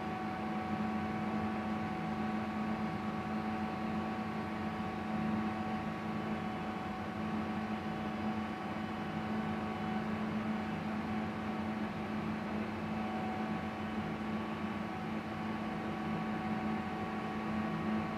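A steady mechanical hum with several steady tones over a faint even hiss, unchanging throughout.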